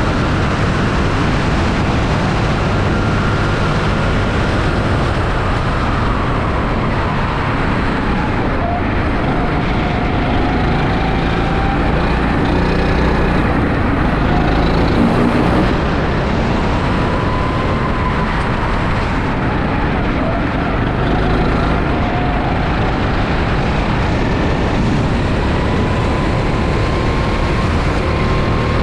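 Rental go-kart engine running hard on track, heard onboard, its note slowly rising and falling as the kart accelerates and slows through the corners over a dense rush of noise.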